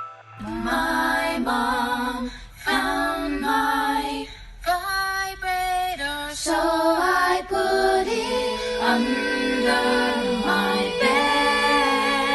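Background music: a woman singing a melody with little accompaniment, joined by a held steady note from about eight seconds in.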